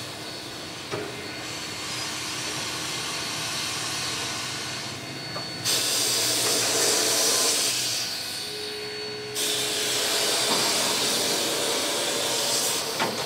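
Steam locomotive 3265, a NSWGR 32-class 4-6-0, hissing steam at rest. The hiss grows louder and higher twice, about six seconds in and again about nine seconds in.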